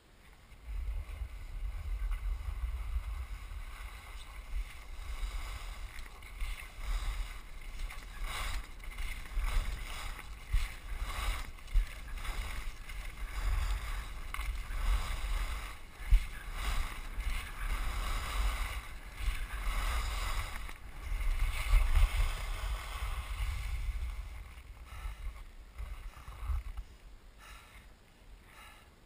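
Edges carving and scraping over groomed snow in a fast downhill run, with wind rumbling on the microphone. It starts about a second in, surges with each turn, and dies down near the end.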